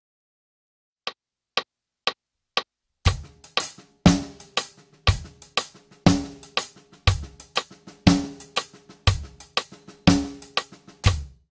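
Four light count-in clicks about half a second apart. Then a full drum kit plays a groove built on the single paradiddle-diddle sticking in triplets, with a strong low hit about once a second, and it stops after a last hit near the end.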